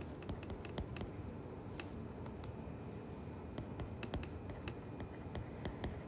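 Stylus tapping and clicking on a tablet screen while handwriting, faint irregular light clicks over a low background hum.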